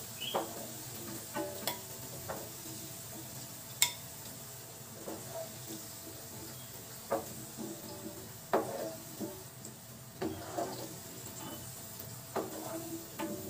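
Cubed carrots sizzling in hot oil in a non-stick frying pan, while a wooden spatula scrapes and knocks against the pan as the fried pieces are scooped out. The knocks come at irregular intervals, with one sharp click about four seconds in.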